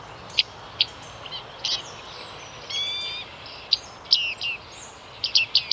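A flock of bearded reedlings (bearded tits) calling: a run of short, sharp high call notes from several birds, with one longer call of several stacked tones about three seconds in. The calls come faster and closer together near the end.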